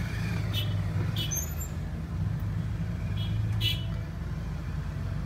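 Steady low rumble of idling engines, heard from inside a car cabin, with a wheel loader running close alongside. A few short high clicks sound over it.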